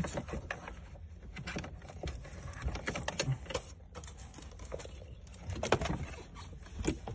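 Rustling and light clicking of wiring-harness cables and plastic connectors being handled and pushed through a car's dashboard cavity, with irregular small knocks and a sharper one a little before the end.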